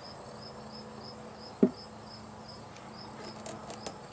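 A cricket chirping steadily, about two to three chirps a second, over a faint steady high whine and hum. A short knock sounds about a second and a half in, with a few small clicks near the end.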